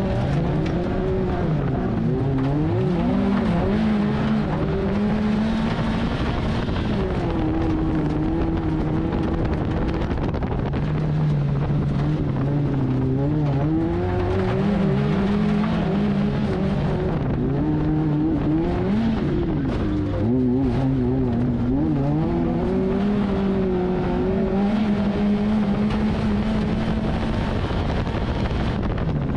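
Peugeot 106 autocross car's engine heard from inside the stripped cabin, revving up and dropping back over and over as it accelerates, shifts and slows for corners on a dirt track, over a steady rush of tyre and chassis noise.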